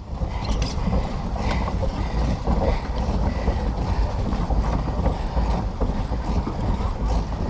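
Pedal-driven paddle boat under way: its pedal crank and paddle-wheel drive run steadily with a mechanical rattle and faint ticks.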